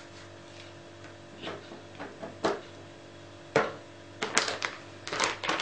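A series of light knocks and clicks as small plastic ink pads are picked up off a cutting mat and set aside, the sharpest about three and a half seconds in and a quick cluster near the end, over a faint steady hum.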